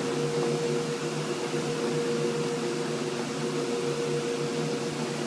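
Kongsberg XL-44 digital cutting table running, its PowerHead tool head working over corrugated board: a steady mechanical hum with a constant mid-pitched tone and no breaks.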